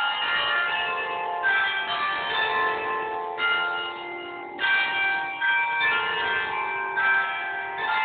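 Several church bells ringing together, a new strike about once a second, each tone ringing on under the next.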